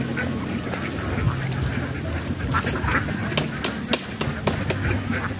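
Ducks quacking in short, scattered calls, several in quick succession about halfway through.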